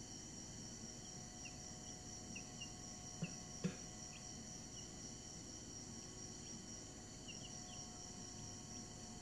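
Week-old chicks peeping faintly now and then, short falling cheeps scattered through, over a steady high-pitched whine. Two soft knocks a little over three seconds in.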